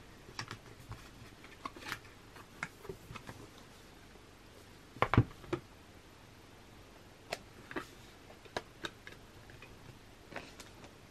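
A CD album's packaging and photo book being handled: scattered light clicks, taps and rustles, with one louder knock about five seconds in.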